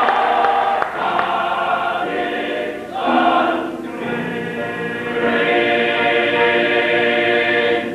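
Welsh male voice choir singing in harmony, with long held chords; the singing stops just before the end.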